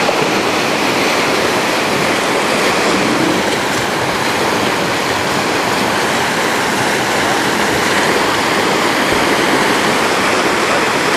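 Steady rushing of river rapids, loud and even with no breaks.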